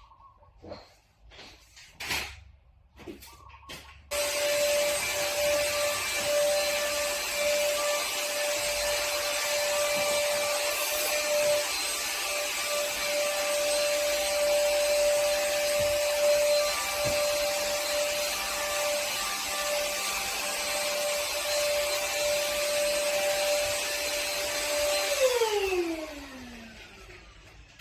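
A few knocks, then an electric motor of a cleaning machine switches on abruptly, runs steadily with a whine for about twenty seconds, and is switched off near the end, winding down with a falling whine.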